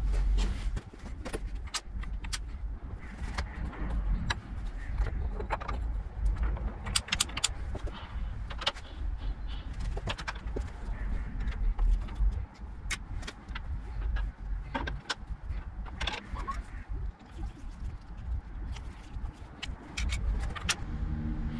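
Irregular metallic clicks and clinks from an Archdale horizontal mill's gearbox as the speed-selector dial is turned by hand and the sliding gears shift along their shafts, with the machine not running. A low rumble lies underneath.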